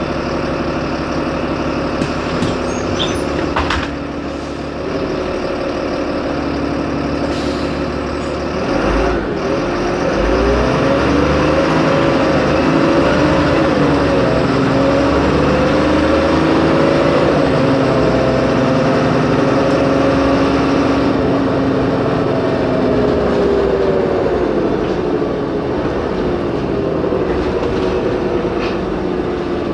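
Diesel engine of a Solaris Urbino 15 city bus idling steadily, with a few brief clicks near the start. About nine seconds in it revs up as the bus pulls away, its pitch climbing and dropping several times as the automatic gearbox shifts.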